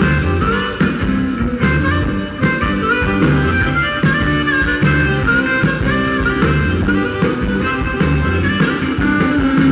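Live blues band playing an instrumental passage: harmonica lead over electric guitar, bass guitar and a steady drum beat.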